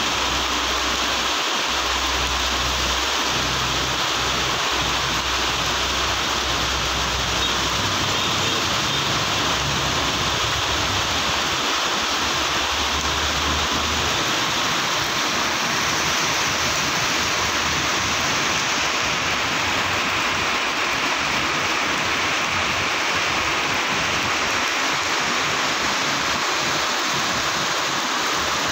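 Heavy rain pouring onto a paved road, a dense, steady hiss. The low hum of the waiting trucks' and bus's engines runs under it for about the first half, then fades.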